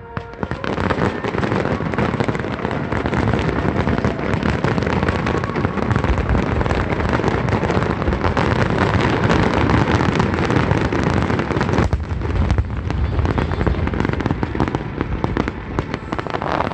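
Large aerial fireworks barrage: a dense, continuous mass of shells bursting and crackling, which starts suddenly about half a second in.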